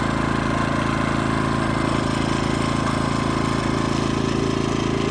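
Pulsar PG2000iS inverter generator running steadily with no load. Its small engine gives an even, unchanging hum.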